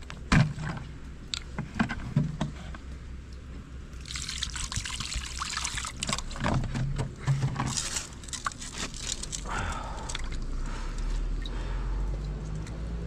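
Plastic water jug handled with a few clicks and crinkles, then water poured from it into a frying pan, splashing for about four seconds. After that, softer sloshing as a piece of raw pork is rubbed and washed by hand in the water.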